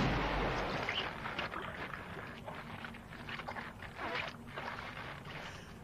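Film sound effects: the tail of a loud hit dying away into a quiet rushing haze, with scattered faint taps and crackles.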